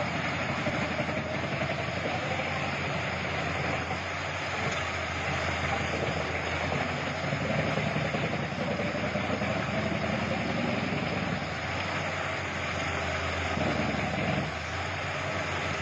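Wood chipper running steadily: a constant engine drone under a dense, even noise of the machine at work, its pitch wandering slightly.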